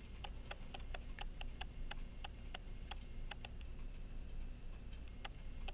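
Light, sharp metallic ticks, about three a second with a pause of over a second near the end: small steel parts of a pocket watch movement and pliers clicking together as the click spring is worked on.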